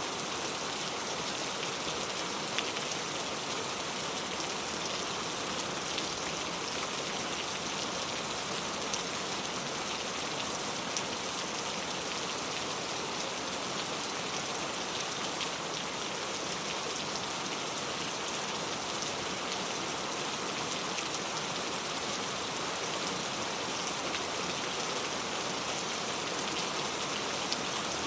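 Steady rainfall, countless drops pattering on surfaces with small scattered drop ticks, even and unchanging.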